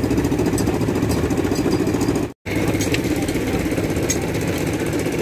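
A small engine running steadily at idle, with a rapid even pulsing; it drops out for an instant about two and a half seconds in.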